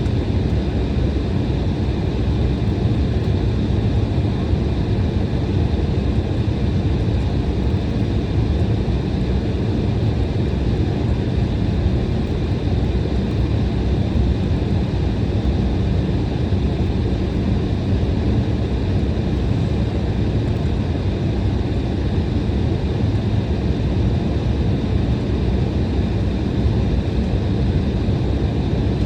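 Steady cabin noise inside an Embraer E175 airliner: the deep, even rumble of its two turbofan engines and the airflow, with a few faint steady high tones riding over it.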